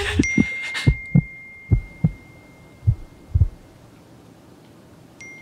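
Heartbeat sound effect: several soft, low thumps in loose pairs, slowing and fading away over about three seconds. A clear, high phone notification chime rings out just after the start, and the same chime sounds again near the end.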